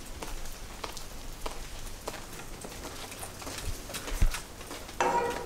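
Footsteps through overgrown brush and debris: irregular light crackles and taps, with a louder knock about four seconds in and a short buzzy sound near the end.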